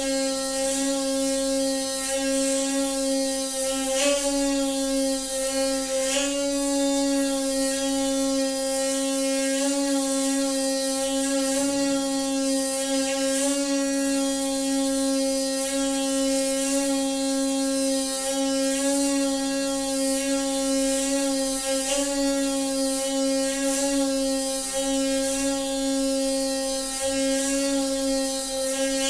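Noisy water pipe humming: a steady drone at one pitch with many overtones, over a high hiss.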